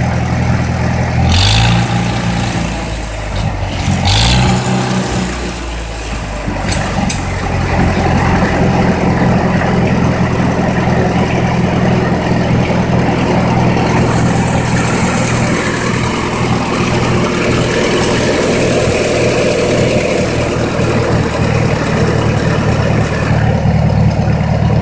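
A 1953 Farmall Super H's four-cylinder gasoline engine, running on a freshly rebuilt carburetor after a tune-up, is revved up from idle. Its speed shifts briefly twice in the first few seconds, then it settles into steady, louder running at a higher speed.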